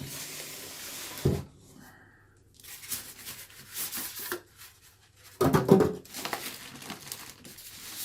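Packing materials around a boxed printer being pulled and handled: bursts of rustling, crinkling and tearing, with a knock about a second in and louder bumping about two-thirds of the way through.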